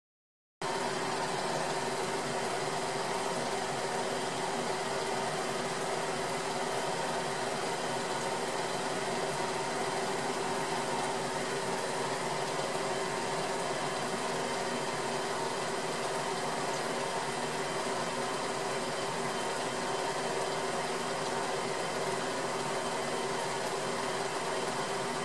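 Steady mechanical hum with hiss, cutting in abruptly under a second in and then holding unchanged, with no revving, passes or other events.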